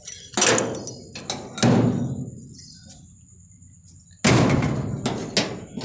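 Sheet-metal gate being pulled open: four loud clangs, two in the first two seconds and two more about four seconds in, each ringing on briefly.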